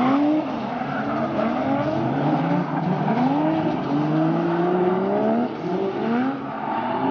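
Toyota JZX drift cars (Mark II and Chaser) with JZ-series straight-six engines revving up and down as they slide, with tyre squeal. More than one engine is heard at once, their pitches rising and falling again and again.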